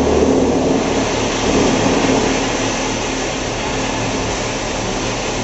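YMPJ1400 220 kW industrial wood chipper running, a loud steady mechanical drone. Its deep low hum drops away about half a second in, and the sound eases a little after that.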